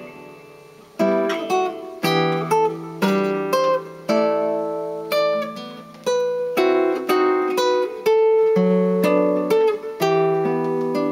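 Solo guitar playing a chord-melody passage: jazz chords with the melody on top, struck one after another about once or twice a second, each left to ring.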